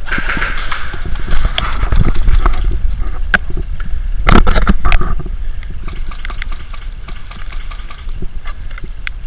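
Rustling and crunching of dry fallen leaves as a player moves and crouches, with wind buffeting the microphone as a steady low rumble. Several sharp cracks stand out, the loudest cluster about four to five seconds in.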